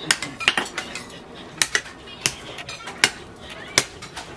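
Hand hammer striking red-hot leaf-spring steel on a steel post anvil: about eight sharp metallic blows, unevenly spaced, as the billhook blade is drawn out and shaped.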